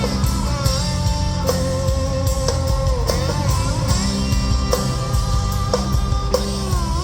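Live rock band playing an instrumental passage: a lead guitar holds long notes that bend and waver, over bass and a drum kit keeping a steady beat.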